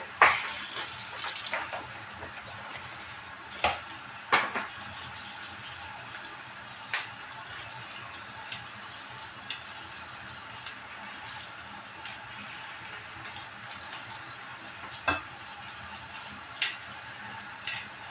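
Kitchen tap water running steadily into a plastic basin in the sink, with scattered sharp clicks and knocks as bok choy is handled and trimmed with a knife, the loudest right at the start.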